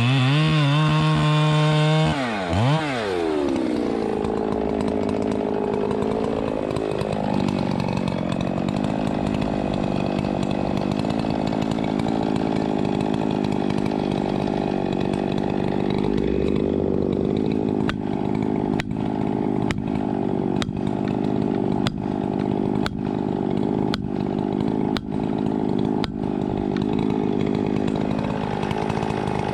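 Chainsaw run at high revs for about two seconds, then dropping back to run at a steady lower speed. In the second half a sharp knock comes about once a second, nine or ten times.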